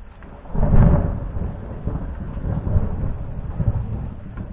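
Thunder: a sudden loud clap about half a second in, followed by low rolling rumbles that swell a few times and slowly die away.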